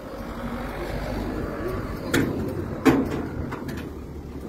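Indistinct murmur of a crowd's voices over a low steady rumble, with two sharp knocks about two and three seconds in.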